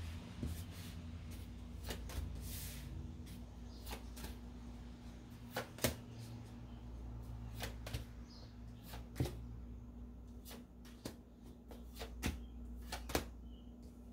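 Tarot cards being dealt one by one onto a tabletop: about a dozen sharp taps and snaps at irregular intervals, over a low steady hum.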